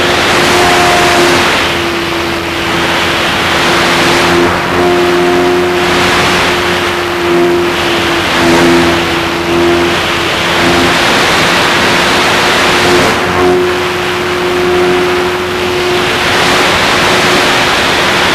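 RC model P-51's motor and propeller in flight, heard from the onboard camera: a steady whine that shifts slightly in pitch, under a rush of wind over the airframe that rises and falls every few seconds as the plane banks and turns.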